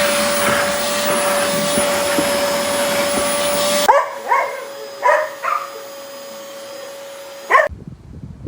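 Oreck Commercial XL Pro 5 canister vacuum running with a steady whine over a loud rush of air; the rush cuts out suddenly about four seconds in. A fainter whine carries on while a dog barks about five times in short sharp yelps, then everything stops abruptly near the end.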